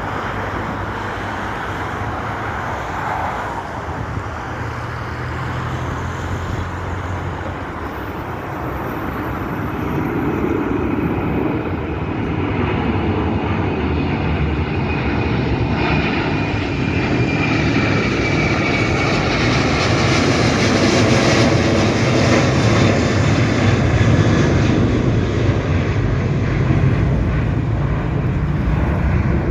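Airbus A330 twin-engine jet airliner taking off, its engines at takeoff thrust in a dense rumble that grows louder through the second half. A high whine slowly falls in pitch as the sound peaks.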